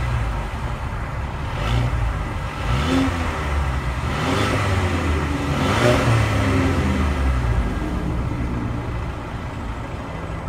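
Exhaust of a 2016 Mercedes-Benz CLA250's 2-litre turbocharged four-cylinder, revved from idle in about four quick blips, each rising and falling, then settling back to a steady idle.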